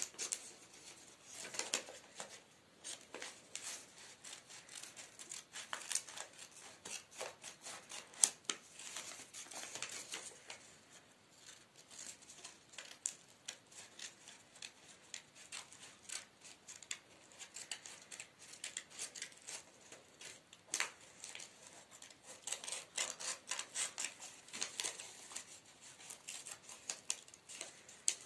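Scissors cutting through paper in short, irregular snips.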